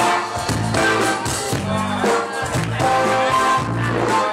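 A live band playing loud in a bar room: steady bass notes and drums under a lead melody of held notes.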